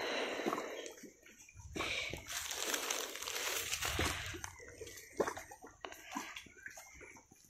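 Water sloshing and lapping against the stones at the bank's edge, swelling up twice in the first half and then dying down to small scattered ticks and drips.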